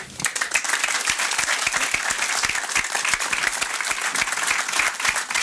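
A crowd applauding, many hands clapping together.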